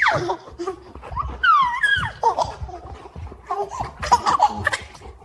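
Baby laughing in short bursts, with a high squeal that rises and falls about a second and a half in.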